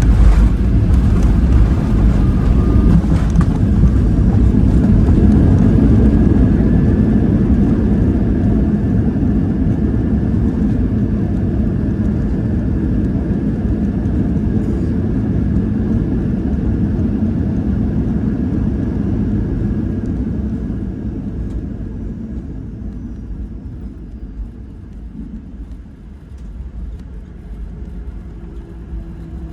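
Boeing 737-800 cabin noise on the landing rollout: a loud rumble of engines and runway that fades over about twenty seconds as the jet slows down.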